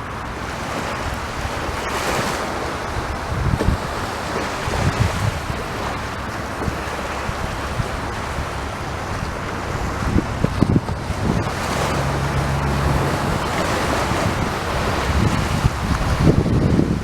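Sea surf breaking and washing on the shore, a steady rush, with wind buffeting the microphone in low gusts now and then.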